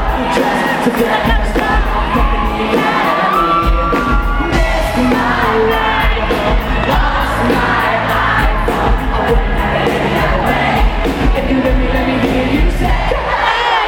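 Live pop band playing loudly, with a heavy bass, a steady drum beat and a lead vocal, while a crowd cheers and shouts along.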